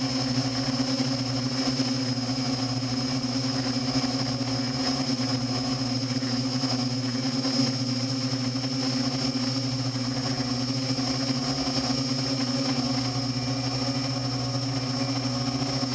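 Electric motors and propellers of a drone in flight, heard through its onboard camera: a steady low hum with a thin high whine above it, unchanging throughout.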